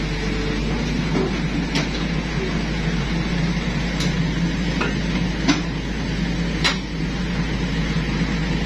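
Excavator's diesel engine running steadily, with several sharp knocks spread through.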